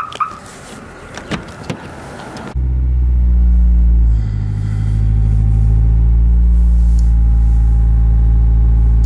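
A few clicks and knocks inside a Honda S2000, then about two and a half seconds in its four-cylinder engine starts with a sudden rumble, runs a little higher for a moment and settles into a steady idle.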